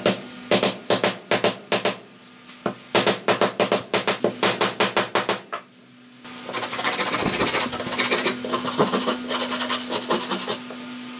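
A hammer striking a wooden strip into the slot of a homemade sandpaper-wrapped wooden sanding block: quick blows, about four a second, in two runs. About six seconds in, sandpaper rasping back and forth along a wooden strip as the block is used for sanding.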